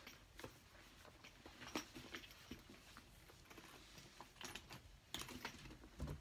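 Faint, scattered clicks and rustling from a Louis Vuitton Alma BB handbag being handled as its shoulder strap is lifted off over the head.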